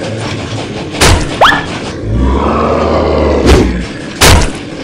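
Cartoon fight sound effects: a couple of sharp thuds with a quick rising whistle about a second in, then a deep rumble and two more heavy thuds.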